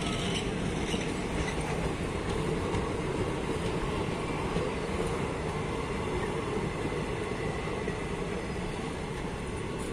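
Coaches of an Indian Railways express train passing close by, with the steady noise of their wheels running on the rails.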